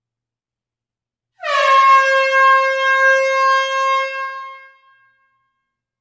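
One long air horn blast starting about a second and a half in, its pitch dipping slightly at the onset and then held steady before fading out about three seconds later.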